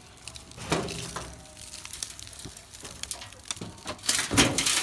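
Potting soil rustling and crumbling as it is worked apart by hand, with scattered clicks and scrapes. The sound gets louder and busier near the end.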